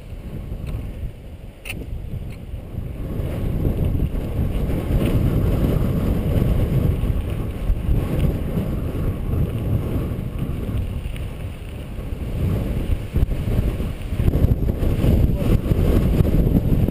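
Wind buffeting the camera microphone and mountain-bike tyres rumbling over a dirt and gravel singletrack while riding, louder from about three seconds in.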